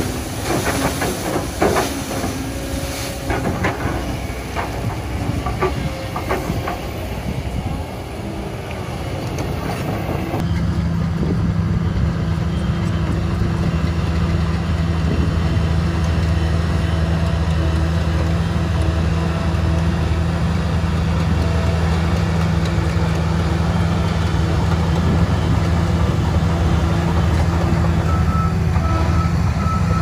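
For the first ten seconds, an excavator's diesel engine working while its bucket dumps soil and clods into a dump truck's steel bed, with knocks and clatter. Then, about ten seconds in, a Shantui crawler bulldozer's diesel engine runs steadily under load as it pushes soil.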